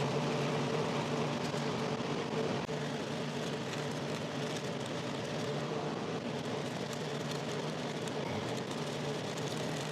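Steady, even hum of an air conditioner running, with faint low tones.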